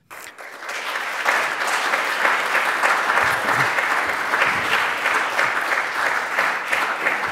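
Audience applause, building up over the first second and then steady.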